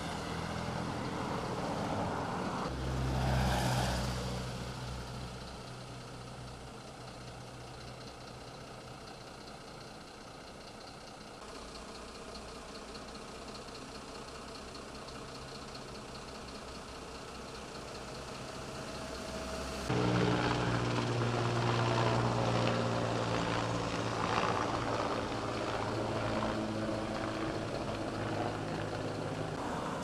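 Heavy truck engines idling and running along a road, with a vehicle driving past about three seconds in. From about twenty seconds a truck engine runs close by, steady and louder.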